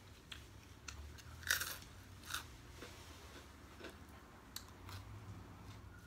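Close-up eating sounds: crunchy bites and chewing, a scatter of short clicks with the loudest crunch about a second and a half in.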